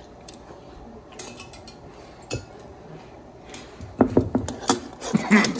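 Metal kitchen tongs clattering and clinking against a large glass pickle jar as the next pickle is fished out of the brine. After a few faint clicks, a rapid run of loud clinks starts about four seconds in.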